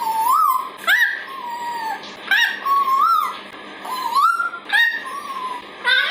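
Parrot making a string of short, squeaky whistled calls that slide up and down in pitch, about one a second.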